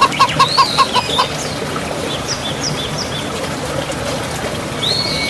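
Hen clucking: a quick run of about six clucks in the first second, then scattered higher chirps over a steady trickling background.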